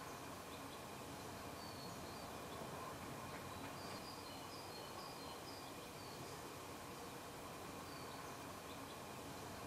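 Faint woodland and loch ambience: a steady hiss with distant birds calling, a short run of high chirps in the middle.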